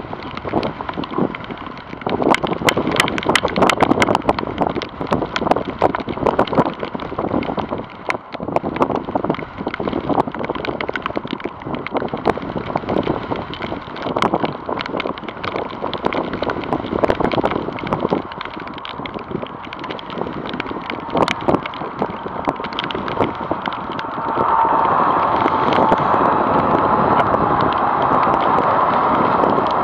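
Wind buffeting and crackling on the microphone while a Boeing 747-400F freighter is on approach. About 24 seconds in, the jet's engines become louder and steady as it passes close, with a whine that slowly falls in pitch.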